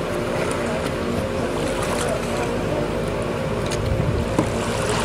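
Steady hum of a boat motor running nearby, over an even wash of noise with a few faint ticks.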